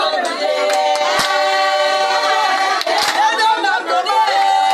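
A group of women singing together in long held notes, with scattered hand claps.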